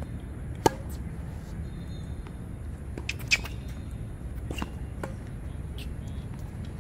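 A tennis rally on a hard court: a sharp pop of racket on ball under a second in, then fainter ball hits and shoe squeaks around three seconds in and again later, over a steady low rumble.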